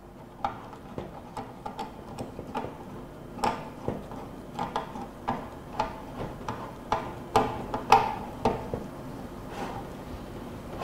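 Phillips screwdriver turning the screw of a hose clamp on a gas hose, giving a series of irregular clicks as the clamp is tightened down.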